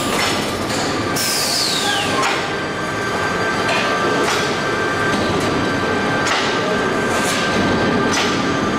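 Automatic sheet-metal air duct production line running with a steady machine noise and a faint constant whine. It is broken by several metallic clanks and a scrape of galvanized steel duct sheet being handled.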